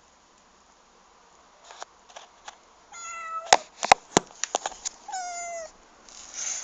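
Domestic cat meowing twice, about three and five seconds in, with a run of sharp clicks or taps between the meows. These are the meows of a cat wanting to be let in.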